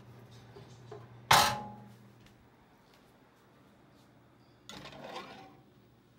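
A metal loaf tin clanks once, sharp and ringing, about a second in as it is lifted out of the oven with a mitt; near the end it rattles and scrapes as it is set down on a wire cooling rack.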